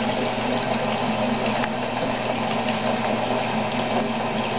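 Bathtub faucet running steadily, water pouring from the spout into a full tub, with a steady low hum under it.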